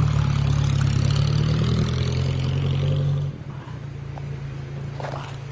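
Taxi car engine running loudly, then dropping sharply in level a little over three seconds in and carrying on more quietly, as of the car pulling away.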